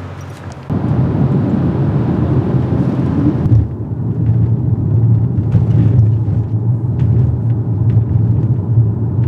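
Car on the move: a loud, steady low rumble of road and engine noise that starts suddenly under a second in. A higher hiss fades out after about three and a half seconds.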